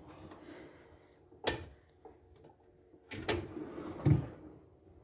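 Plywood pull-out drawer on drawer slides, loaded with pots, being slid by hand. There is a sharp knock about a second and a half in, then a sliding rumble from about three seconds in that ends in a heavier thump as the drawer runs home.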